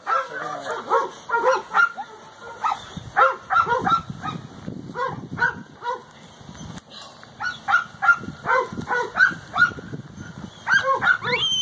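Dog yipping over and over in short, high-pitched calls, several a second, in clusters with a brief lull midway.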